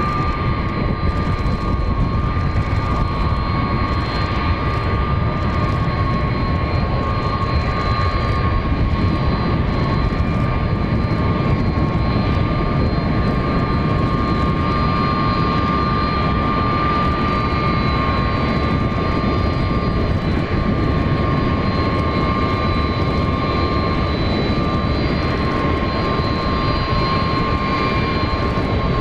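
The three General Electric CF6-50 turbofans of a McDonnell Douglas MD-10-30F running at taxi power as the jet rolls along the taxiway. A steady jet rumble carries a high whine that holds on one pitch, with fainter, higher tones above it.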